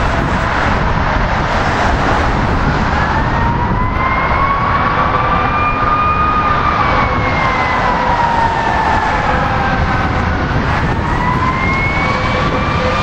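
Fire apparatus siren in a slow wail, distant and approaching: it rises in pitch about three seconds in, falls off again, then climbs once more near the end. It sounds over loud, steady road traffic noise, with a bus passing close by near the end.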